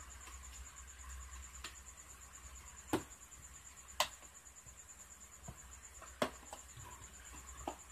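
Sharp plastic clicks of a TV back cover's locking clips being prised loose, a few at uneven intervals with the loudest about three, four and six seconds in. A steady high, finely pulsing chirring runs underneath.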